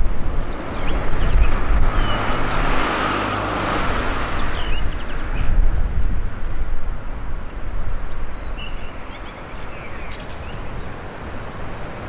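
Male blue rock thrush singing short, clear whistled phrases, half buried under strong wind buffeting the microphone with a heavy low rumble.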